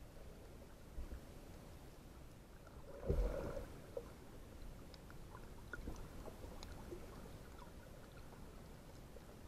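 Underwater sound picked up by a camera on a freediving dive: a low rumble with scattered faint clicks, and one brief louder burst about three seconds in.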